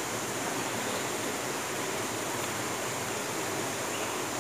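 Steady rush of water flowing over the rocks of a mountain stream below a waterfall.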